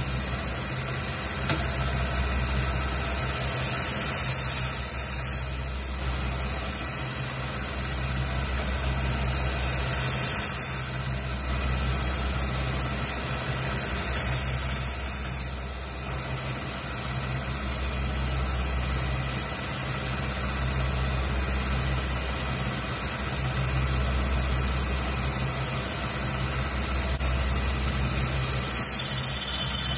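Electric belt sander running with a steady motor hum while a steel axe head is pressed against its nearly grit-less sanding belt. A high-pitched grinding hiss swells four times as the steel meets the belt.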